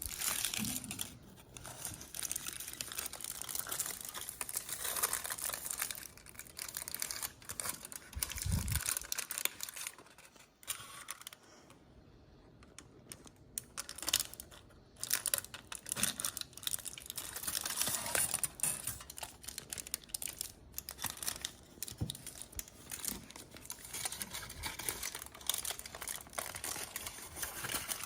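Packaging of a Dubai chocolate bar being unwrapped: crinkling and tearing of the wrapper with many small clicks and taps, going quieter for a few seconds about ten seconds in.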